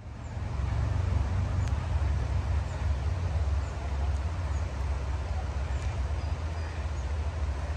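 Steady rush of creek water with a heavy low wind rumble on the microphone.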